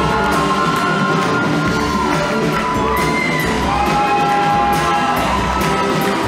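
Live show-choir band playing upbeat music: long held notes over a steady drum beat.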